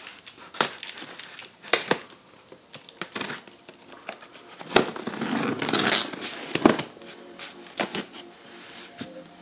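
Cardboard shipping box being opened and unpacked by hand: packing material crinkling and rustling, with scattered sharp knocks and a longer stretch of crumpling and tearing about five seconds in.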